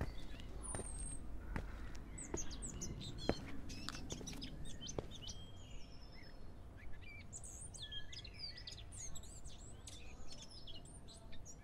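Small songbirds chirping and twittering in many short high calls, busiest in the second half, over a low steady rumble, with a few sharp clicks in the first five seconds.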